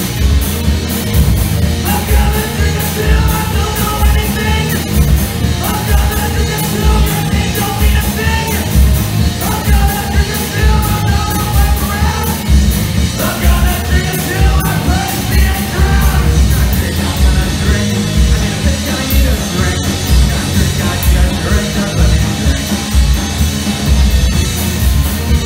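Live punk rock band, a three-piece of distorted electric guitar, bass guitar and drum kit, playing loud through the PA. Sung and yelled vocals run from about two seconds in until a little past the middle, with the instruments alone after that.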